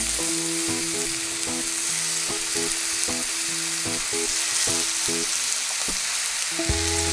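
Raw chicken-and-lotus-root patties sizzling in hot salad oil in a nonstick frying pan as more of them are laid in. Light background music plays alongside.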